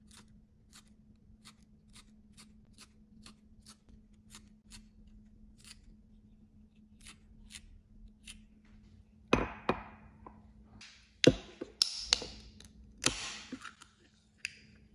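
A series of light, evenly spaced clicks, about two a second, for roughly the first eight seconds, then several louder knocks and clatters starting about nine seconds in.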